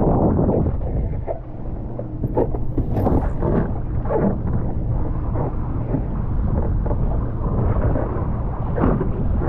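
Wind buffeting the microphone in a steady low rumble, with repeated splashes and slaps of choppy water against the wing-foil board.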